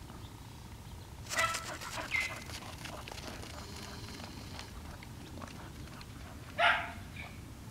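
A dog barking: a couple of short barks about a second and a half in, then one louder bark near the end.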